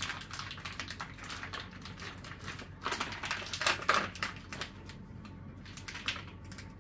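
Plastic meat packaging crinkling and crackling in irregular handling noises as a raw roast is pulled out of its wrapper by hand. The crackling is loudest in a flurry about three to four seconds in.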